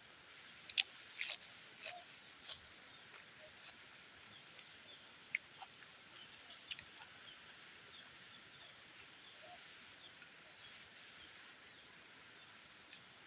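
A person eating noodle soup: small wet clicks and smacks of chewing, clustered in the first few seconds and sparser after, over a faint steady hiss.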